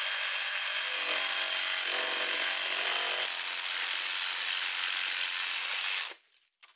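DeWalt Atomic 20V brushless one-handed cordless reciprocating saw cutting through small green tree stems, a steady buzzing saw noise with a faint motor whine. It stops suddenly about six seconds in.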